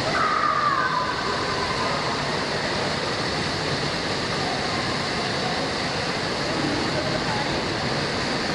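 Indoor water park din: a steady rush of running and splashing water with distant voices echoing through the hall, one voice calling out briefly at the start.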